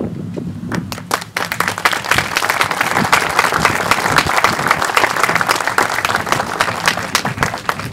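An audience applauding. The clapping picks up about a second in, holds steady and dies down near the end.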